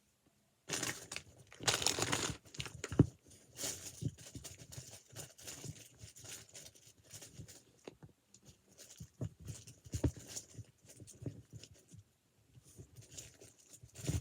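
Hands rummaging through and handling fidget toys and squishies. There is irregular rustling and crinkling throughout, with scattered light knocks and one sharper knock about three seconds in.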